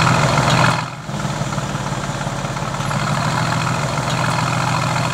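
Mercedes-AMG GT S's 4.0-litre twin-turbo V8 (M178) idling steadily with the AMG performance exhaust switched on. The sound dips briefly about a second in, then carries on at the same steady idle.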